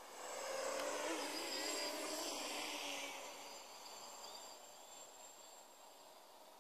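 Quadcopter's brushless motors and propellers buzzing as it flies close past, the pitch wavering up and down with throttle. The buzz swells about half a second in and fades away after about three seconds.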